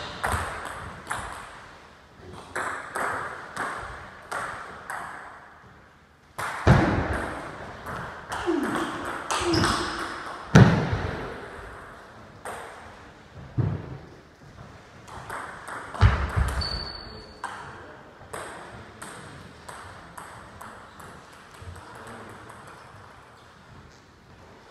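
Table tennis ball clicking off bats and the table in quick runs during rallies, with short pauses between points and a few heavier thuds mixed in; the clicks thin out to a few scattered bounces near the end.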